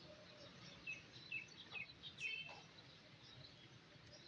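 Faint, short bird chirps, four or five of them about one to two and a half seconds in, over a low steady background hum.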